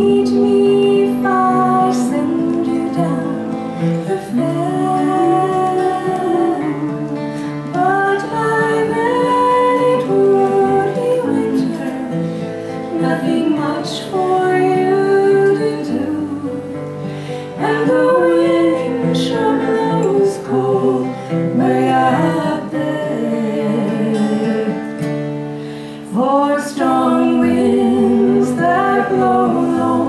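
Two acoustic guitars strummed while women's voices sing a slow folk song.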